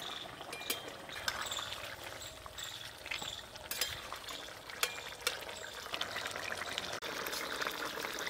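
Thin fish curry boiling in a metal kadai, with a metal spatula stirring it and clinking against the pan several times.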